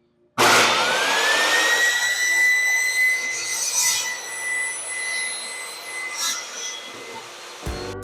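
Table saw switched on: the motor whine rises as the blade spins up, then holds at a steady high pitch over a loud rushing noise while cedar fence pickets are ripped into strips. Guitar music comes in near the end.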